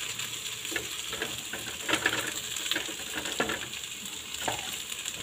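Chicken breast pieces and sliced onions sizzling in a nonstick frying pan, with a wooden spatula scraping and knocking against the pan about six times as they are stirred.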